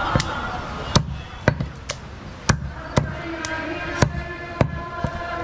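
A butcher chopping goat meat with a blade onto a chopping block: about ten sharp chops, roughly two a second.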